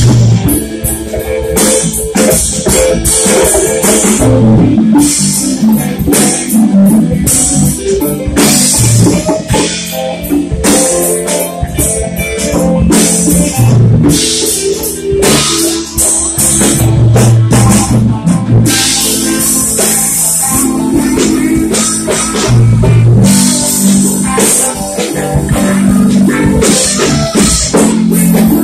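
Live rock band playing loud, without vocals: electric guitars and electric bass over a drum kit with frequent cymbal hits.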